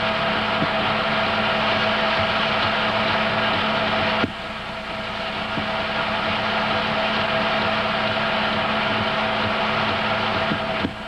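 Steady whir of a home-movie film projector's motor and fan, with a low hum and a steady tone running through it. The level drops suddenly about four seconds in and again near the end, then climbs back.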